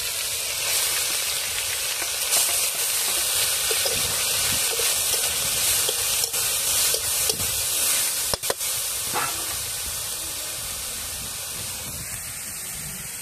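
Ginger, garlic, onion and green chilli paste sizzling in hot mustard oil in a kadai, with a few sharp knocks; the sizzle eases off near the end.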